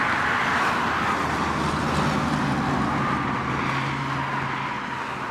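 Road traffic: a continuous rush of vehicles passing, with a whine that slowly falls in pitch, fading near the end.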